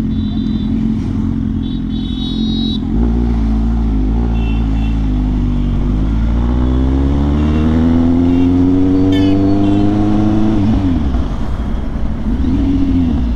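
Kawasaki Z800's inline-four engine heard from the rider's seat, running at low revs, then accelerating with a steadily rising pitch for about four seconds before the revs fall away sharply about ten seconds in.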